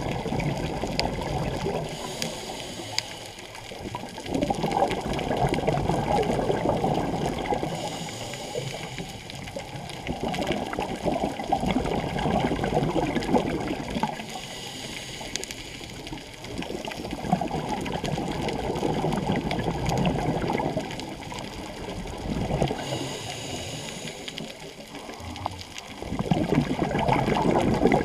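Scuba diver breathing through a regulator underwater, heard through the camera housing: a short hiss on each inhale, then a longer rush of exhaled bubbles, about four breaths, one every six or seven seconds.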